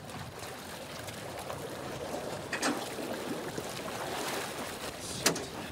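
Floodwater sloshing and splashing around a rescuer struggling in it beside a submerged car, with two sharp knocks, about two and a half seconds in and again near the end.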